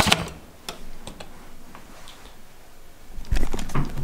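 A hotel room door and key card being handled: a sharp click, a few light taps, then a louder run of knocks and rustling near the end.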